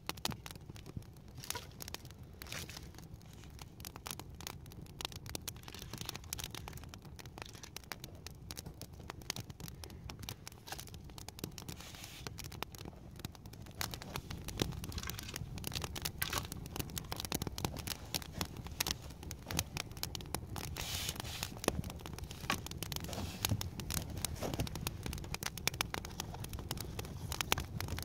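Campfire of dry sticks burning, crackling with many small irregular pops over a steady low rumble, growing louder about halfway through.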